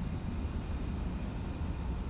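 Factory exterior ambience: a steady low rumble of machinery and industrial noise with a faint, steady high tone over it, and no distinct events.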